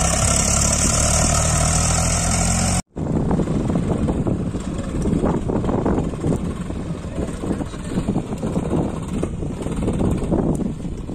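Tractor diesel engine labouring steadily under load while pulling a heavily loaded sand trolley. It cuts out for an instant about three seconds in, then a tractor engine continues more distantly and unevenly under a rough rushing noise.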